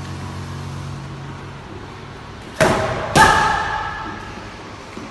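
Two gloved strikes landing on focus pads a little past halfway, about half a second apart, each a sharp smack followed by a brief ringing.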